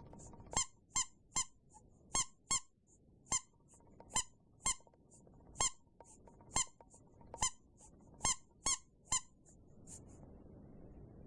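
Rubber bath duck squeaked over and over, about fourteen short high squeaks, some single and some in quick runs of two or three.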